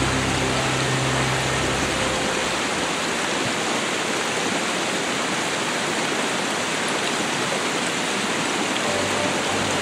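Steady rushing water, an even roar that holds at one level. Low held notes of background music fade out about two seconds in and return near the end.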